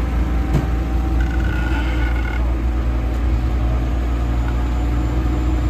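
Off-road 4x4 vehicle's engine running steadily at low revs, with a single click about half a second in.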